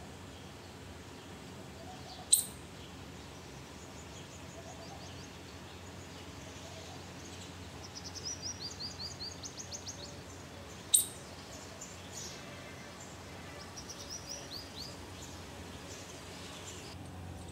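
Small birds chirping in quick runs of short high notes over a steady low outdoor background hum. Two sharp clicks, about two and eleven seconds in, are the loudest sounds.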